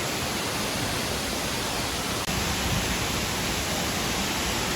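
Palaruvi Waterfalls: a steady, full rush of water falling over 300 feet. It drops out for an instant about two seconds in and comes back a little louder.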